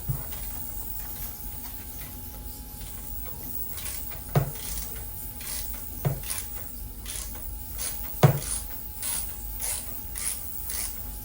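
Socket ratchet clicking in short back-strokes as a bolt is worked loose, with three sharp metal knocks in between.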